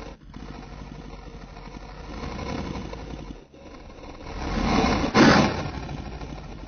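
Custom Godzillasaurus monster sound effect, layered from slowed-down animal roars and growls. A low, rough rumbling growl lasts about three seconds. A second call then swells to a loud roar about five seconds in and tails off.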